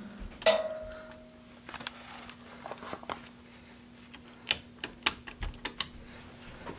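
Wall light switches being flipped: several sharp clicks about four to six seconds in, over a faint steady hum. A brief ringing tone sounds about half a second in.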